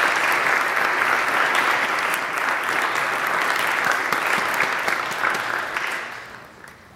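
Audience applauding steadily, dying away about six seconds in.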